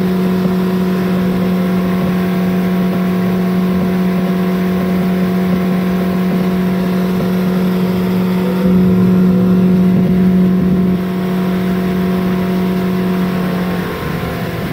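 Outboard motor driving a fishing boat under way, a steady drone. It gets louder for a couple of seconds around nine seconds in, then eases off, and its pitch drops slightly near the end.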